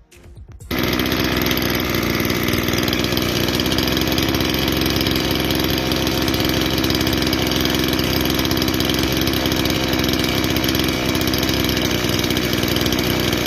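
Stihl FS 220 two-stroke brushcutter engine running steadily after a new ignition coil and piston rings were fitted: the repaired engine runs. It comes in abruptly under a second in.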